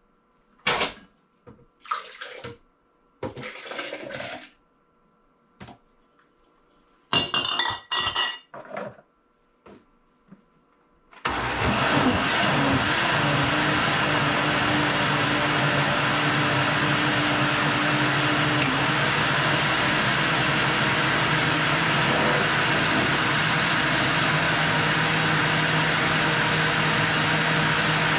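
Handling and pouring sounds as a jar of cooked soybeans is emptied into a countertop blender: several short clinks and knocks. About a third of the way in the blender starts abruptly and runs steadily, with a constant motor hum, blending the cooked soybeans in their canning liquid.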